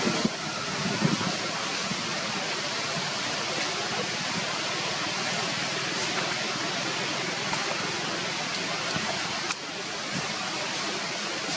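Steady, even outdoor background hiss with no clear animal calls, broken by a single sharp click about nine and a half seconds in, after which it turns slightly quieter.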